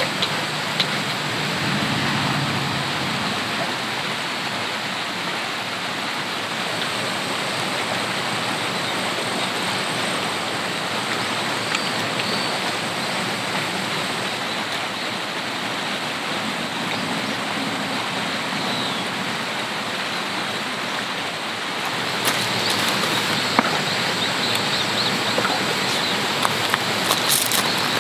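Steady rushing of a nearby stream running the whole time. A few light clicks come in near the end.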